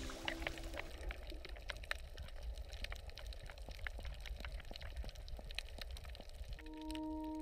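Underwater sound picked up by a camera submerged over a coral reef: a low rumble with many scattered sharp clicks and crackles. Music with long, held tones comes in near the end.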